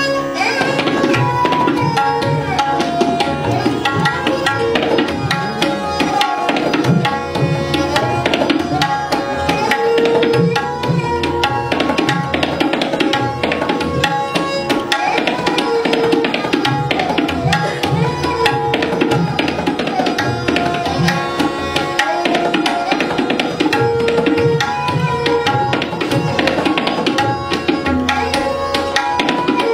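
Tabla solo: fast, dense strokes on the tabla pair, played over a short melodic phrase of held notes that repeats throughout.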